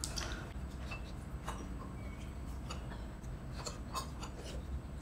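Metal spoons lightly tapping and scraping against ceramic curry bowls: a scatter of soft, irregular clicks over a low steady hum.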